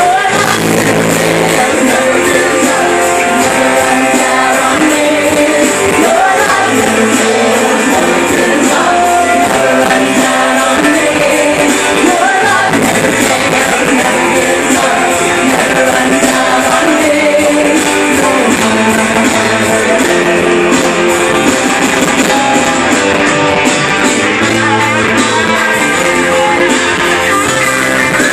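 Live church worship band playing a song with guitar, keyboard and singing, loud and continuous, picked up by a phone's microphone.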